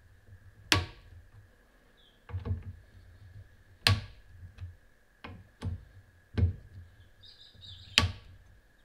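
Wheeler torque screwdriver clicking as it tightens the front scope-ring screws to about 5 inch-pounds: a series of sharp clicks about a second or more apart, three of them louder than the rest, over a faint steady high hum.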